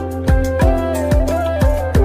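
Background music with a steady beat of deep, pitch-dropping drum hits, about two to three a second, under a held melody line that wavers in pitch.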